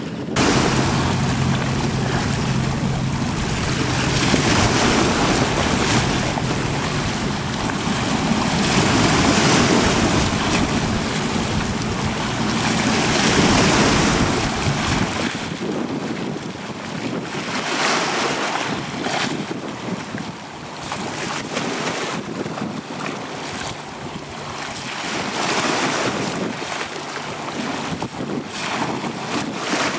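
Wind buffeting the microphone over the wash of choppy water, swelling and fading in gusts, with a low steady engine hum from a fast passenger ferry running past through roughly the first half.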